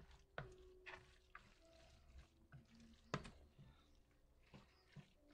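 Faint stirring of a moist, mayonnaise-dressed shredded filling with a spoon in a plastic bowl, with soft wet sounds and scattered light clicks of the spoon against the bowl. The loudest click comes about three seconds in.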